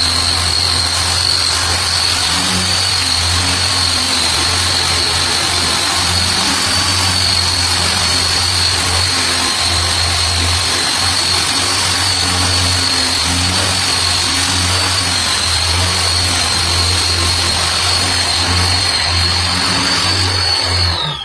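Corded electric disc sander with a foam-backed sanding pad running steadily across a solid oak door. A high, slightly wavering motor whine sits over a low hum and the hiss of the disc on the wood.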